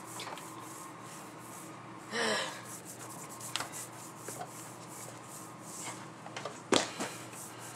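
Quiet room noise broken by a short, breathy hiss about two seconds in and a sharp knock near the end, followed by a couple of lighter taps.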